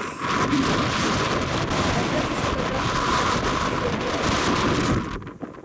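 Wind buffeting the camera's microphone: a loud, even rushing noise that starts suddenly and cuts off about five seconds in.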